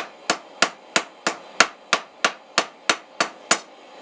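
Hand hammer striking hot steel round stock on an anvil in a steady rhythm of about three blows a second, each blow sharp and ringing briefly. The blows are drawing out and cleaning up a forged taper.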